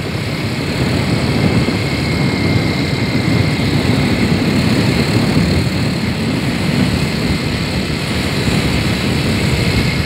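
Steady low rumbling noise with an uneven, fluttering texture and a faint steady high whine.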